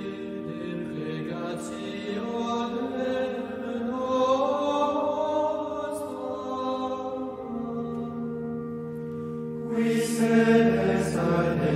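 Slow Gregorian-style vocal chant: long held sung notes over a steady drone, with a melody that slowly rises and falls and swells louder about ten seconds in.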